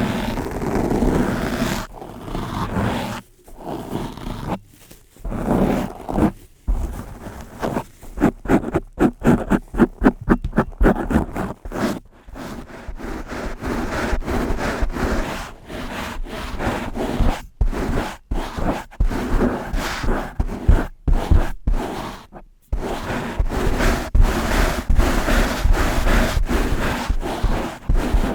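A brush rubbed fast and hard directly on a microphone: close, scratchy strokes with a low rumble, broken by brief gaps, with a quick run of even strokes about a third of the way through.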